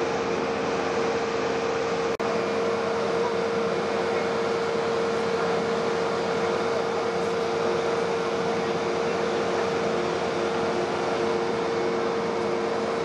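Steady whine and hum of aircraft ground support equipment running beside a parked C-17A Globemaster III, with one constant tone, broken for an instant about two seconds in.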